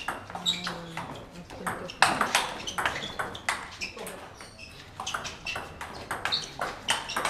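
Table tennis ball clicking in quick, uneven succession off bats and the table during rallies, each hit with a short high ping; the sharpest hit comes about two seconds in.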